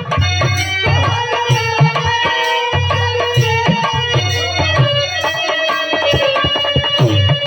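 Bhojpuri birha folk music: a hand-drum rhythm under a sustained, wavering melody line.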